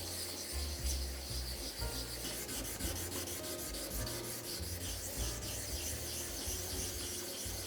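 A 1000-grit wafer rubbed in circular motions across the face of an NSK Kogyo 1500-grit diamond sharpening stone: a steady gritty scraping. The stone is being refinished to erase the coarse scratches left by a 120-grit flattening brick.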